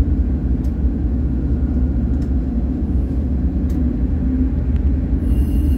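Tugboat's diesel engine running under load while manoeuvring, a steady deep rumble, with a few faint clicks and a brief hiss near the end.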